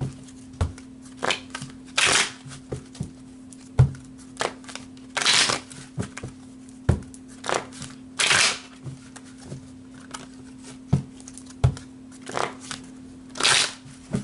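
A deck of oracle cards being shuffled by hand, with short irregular rustling bursts of cards riffling and slapping together about once a second. A steady low hum runs underneath.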